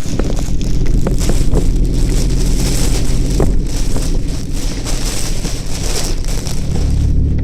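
Toyota Chaser driving in typhoon weather: a steady low engine and road hum, with wind noise rushing over it and a few brief knocks.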